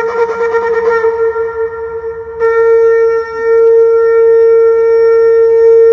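Shofar (ram's horn) blown in one long, steady note that swells louder and brighter about two and a half seconds in.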